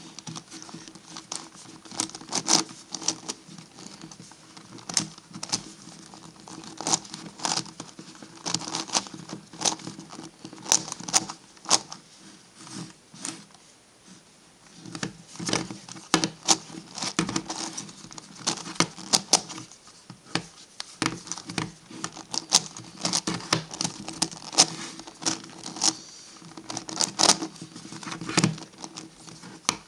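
MF8 Gigaminx puzzle being turned by hand: quick, irregular plastic clicks and clacks as its layers are twisted, with a brief lull about halfway through.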